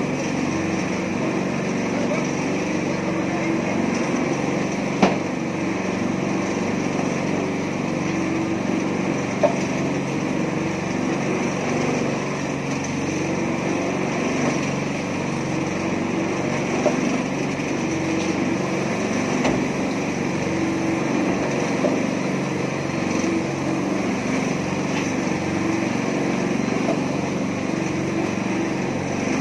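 Small petrol engine of a mini concrete mixer running steadily, with a few sharp knocks now and then.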